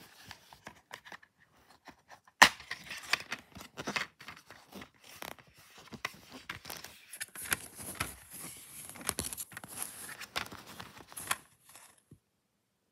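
Plastic DVD case and its wrapping being handled and opened: a sharp plastic snap about two and a half seconds in, then repeated tearing, crinkling and clicking of plastic that stops shortly before the end.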